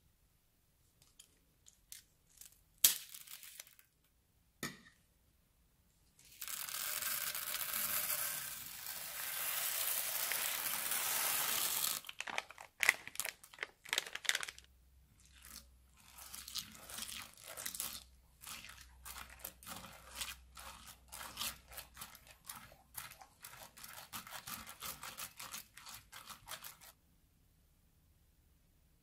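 A plastic piping bag of seed beads and small black beads being emptied onto slime. First come a few clicks and rustles from the bag. Then a steady rushing hiss lasts about six seconds as the beads stream out, followed by a long run of irregular crackles and ticks that stops abruptly near the end.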